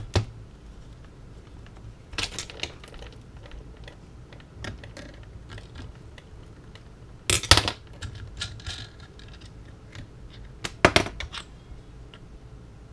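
Scattered clicks, taps and light rattles of small hard parts and tools being handled during hobby building work. There are louder clusters of knocks about two seconds in, at about seven and a half seconds and near eleven seconds, over a faint steady hum.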